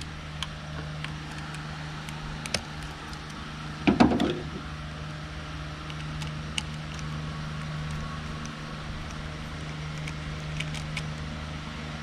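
Small clicks and taps of a screwdriver and copper wire on a light switch's screw terminal as the wire loop is tightened under the screw, over a steady low hum. There is one louder thump about four seconds in.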